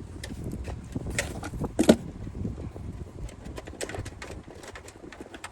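Hands handling computer parts during a PC build: scattered sharp clicks and taps of plastic and metal, the loudest about two seconds in.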